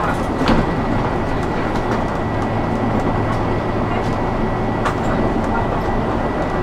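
Inside a city bus driving at steady speed: a continuous low engine hum and road rumble, with a thin steady high-pitched whine. Two small sharp clicks or rattles, about half a second in and near five seconds.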